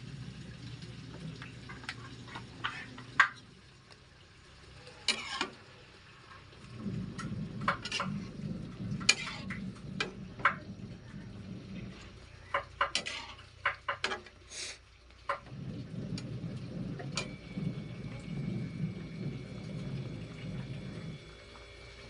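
Spatula stirring chicken adobo in a shallow frying pan, with irregular sharp scrapes and knocks against the pan over a low rumbling noise that comes and goes.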